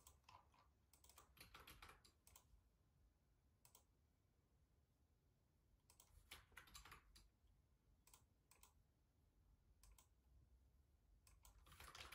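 Faint computer keyboard typing and mouse clicks, in short bursts of rapid clicks with quiet pauses between, the busiest near the end.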